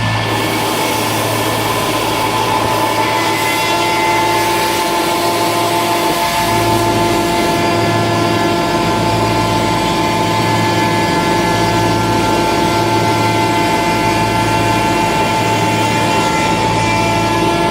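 YL-12242R+B+L-2 CNC router running, a steady mix of whining tones over a low hum that swells and fades about once a second.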